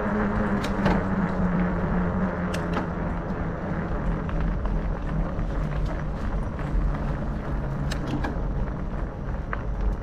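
Trek Farley 5 fat bike's knobby tyres humming as they roll, the hum sliding lower as the bike slows, over a steady low rumble, with a few small sharp ticks.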